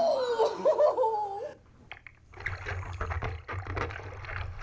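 A high, wavering voice for about a second and a half, then after a short pause sea water sloshing and splashing around a surfer paddling on his board, with a low rumble on the microphone.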